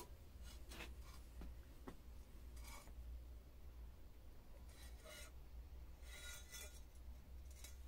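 Faint rubbing and several brief scrapes as a steel straightedge and a cast-iron exhaust manifold are handled against each other, over a low steady hum.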